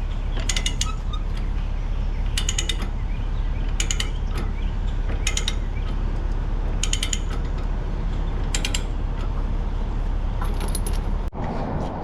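Metal-on-metal clanks and ratcheting from load chains and ratchet binders being tightened to chain an excavator down on a lowboy trailer, a sharp ringing clank every second or two, over the steady low idle of the truck's diesel engine. Both stop abruptly near the end.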